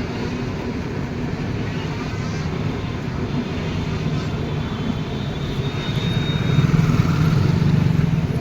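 Train running past with a steady low rumble that grows louder near the end, and a faint thin high tone partway through.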